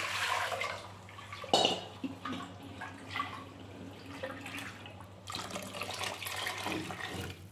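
Thinned mashed dal poured from a steel vessel into a steel pot of tamarind sambar, splashing steadily for about two seconds near the end. Earlier there is water splashing and one sharp clink of steel about a second and a half in.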